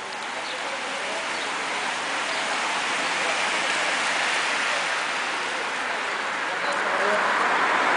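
Road racing bicycles passing in a group, their tyres hissing on wet asphalt; the hiss swells twice as bunches of riders go by.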